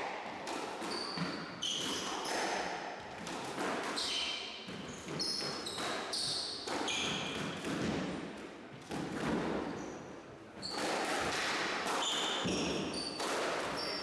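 Squash ball knocking against the walls and rackets, with sports shoes squeaking sharply on the wooden court floor, echoing in the enclosed court.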